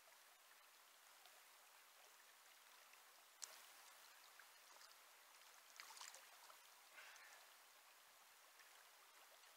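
Faint, steady rush of flowing river water, with a few brief sharp sounds breaking through, the clearest about three and a half seconds in and others around six and seven seconds.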